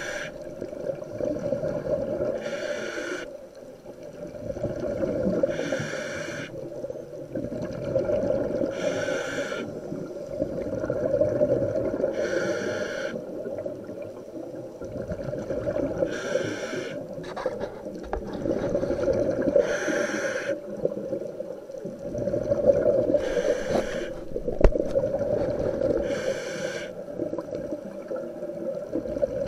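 Scuba diver breathing through a regulator underwater: a short hiss on each inhale, then a low burble of exhaust bubbles on each exhale. About one breath every three seconds, nine in all.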